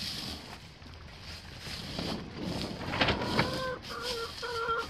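Chicken clucking: a run of short, repeated calls starting about three seconds in, over light rustling and handling noise.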